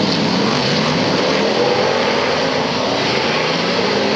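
Several F1 stock cars' big V8 engines running and revving together on a dirt track: a loud, steady engine din whose pitch rises and falls as the drivers work the throttle.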